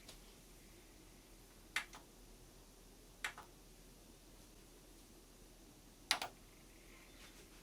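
Near-quiet room tone with a faint low hum, broken by three sharp clicks spaced a second and a half to three seconds apart, the last a quick double click.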